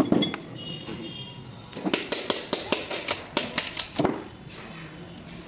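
Metal engine parts being handled on a workbench: a sharp knock with a brief metallic ring, then about two seconds in a quick, uneven run of clicks and knocks.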